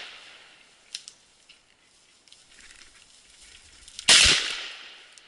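A shotgun fires once about four seconds in: a sharp blast that rings out and dies away over about a second.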